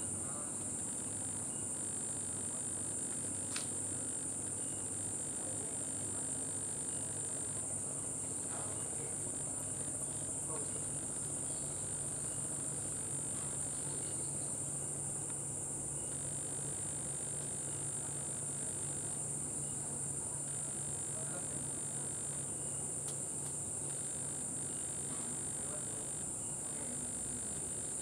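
Steady, unbroken high-pitched chorus of night insects such as crickets, with a single faint click a few seconds in.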